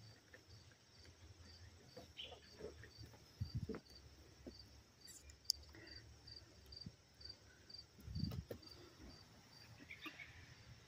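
An insect chirping faintly and steadily outdoors, about two short high chirps a second, with a few soft low thumps and a click from handling or movement close by.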